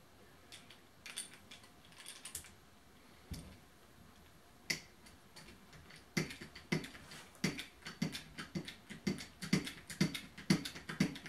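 Temco hand-pumped hydraulic crimper squeezing a lug onto 4/0 copper cable: a few scattered clicks and a knock at first, then from about six seconds in a quick run of sharp clicks, roughly two a second, as the handle is pumped stroke after stroke.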